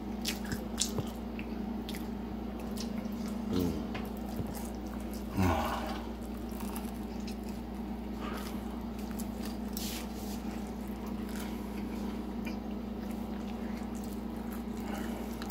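Close-up chewing and wet mouth sounds of someone eating pizza, with two brief hummed sounds from the eater about three and a half and five and a half seconds in, over a steady low hum.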